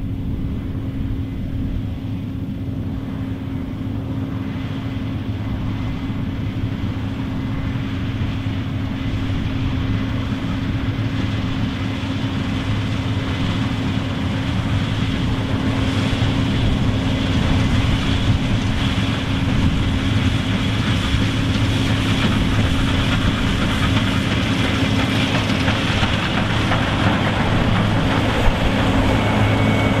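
Case IH 8120 Axial-Flow combine harvester cutting rye, its engine and threshing machinery running with a steady hum that grows gradually louder as it approaches and comes close by.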